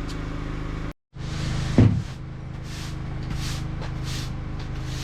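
A steady mechanical hum, like a small engine running, with a single loud knock a little under two seconds in, followed by several short hissing scrapes.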